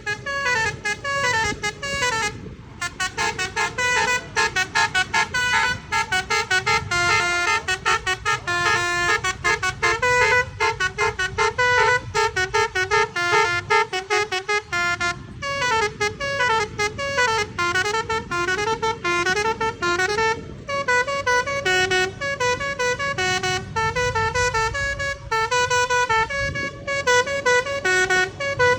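Telolet multi-tone bus horn playing a long, fast melody of stepped notes that goes on almost without stopping, with short breaks twice, over a low rumble.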